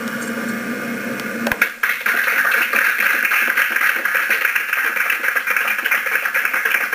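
An audience applauding, a dense patter of clapping that starts about two seconds in. Before it there is only a low steady hum, broken by a sharp click.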